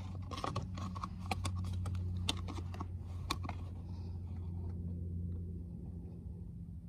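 Red plastic funnel clicking and scraping against the ATV's plastic body panel as it is worked into the oil filler neck: a string of sharp taps in the first few seconds, then quieter as it is held still. A steady low hum runs underneath and fades near the end.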